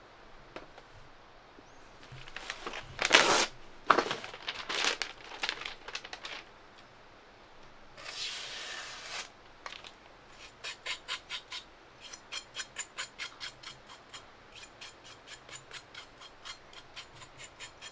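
Cloth and paper rubbed along the steel blade of a freshly whetstone-polished kitchen knife: a few loud wiping strokes in the first half, then a long run of quick, light, even strokes, about four to five a second.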